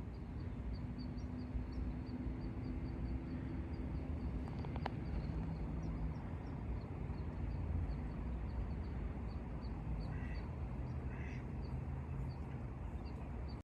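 A bird calling over and over in short high chirps, about three a second, with a steady low rumble of outdoor background noise underneath.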